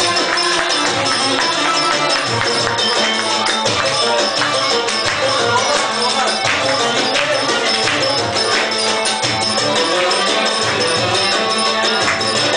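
Folk dance music with a busy percussion beat, playing steadily.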